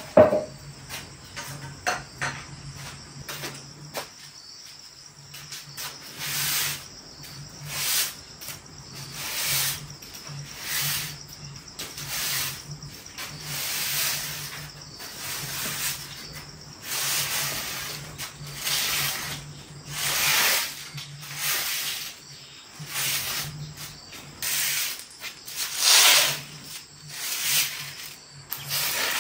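Repeated rough swishing strokes, about one every one and a half seconds, over a faint low hum; a sharp knock at the very start.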